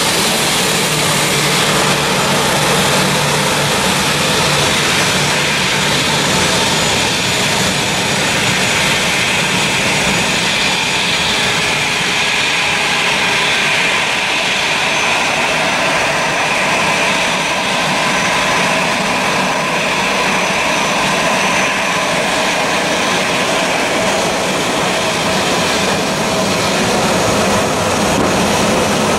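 Boeing 737-800's CFM56 turbofan engines running at taxi power as the airliner rolls onto the runway: a steady jet roar with a high whine that is strongest in the middle stretch.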